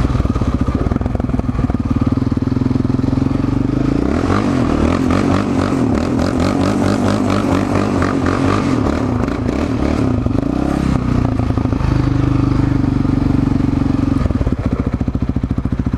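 Yamaha Raptor 700 quad's single-cylinder four-stroke engine revving hard while the quad spins a donut on loose dirt, its tyres scrabbling and throwing dirt. The revs climb about four seconds in, and the engine settles to a steadier run near the end.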